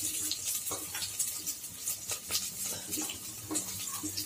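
Chopped small onions sizzling in hot sesame oil in a clay pot, with a spoon stirring and scraping against the pot at irregular moments.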